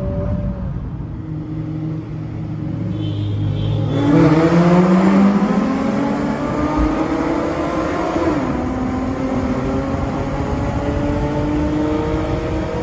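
Car engine under acceleration. It runs steadily at first, then gets suddenly louder about four seconds in with its pitch climbing. The pitch drops at a gear change about eight seconds in, then rises again.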